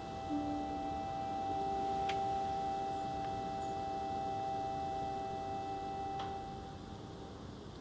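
Ambient film score: a few long, held, ringing tones at different pitches, new notes entering in the first second or two, fading out near the end, with a couple of faint clicks.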